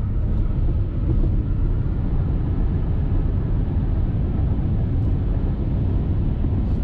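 Steady road and wind noise inside a moving car's cabin: a constant low rumble from the tyres and engine with a hiss on top.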